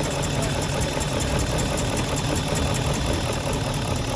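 BMW 740i's 4.4-litre V8 idling steadily on its first cold start after a timing chain replacement.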